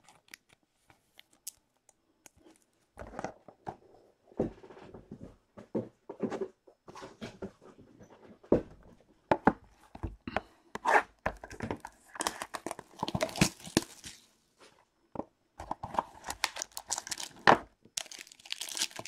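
Baseball card box and its plastic-wrapped pack being handled and torn open: irregular light clicks and rustles, with longer stretches of tearing and crinkling about twelve and sixteen seconds in.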